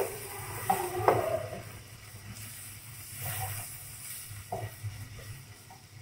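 Sliced onions sizzling in hot oil in a nonstick wok as they are fried toward browning, while a wooden spatula stirs and scrapes them. A few knocks and scrapes of the spatula against the pan, the sharpest about a second in.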